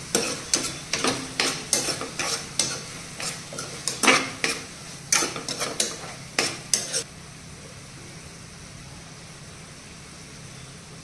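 Metal spoon stirring chopped tomatoes and onions in a frying pan, scraping and knocking against the pan about twice a second. The stirring stops about seven seconds in, leaving a faint steady hiss.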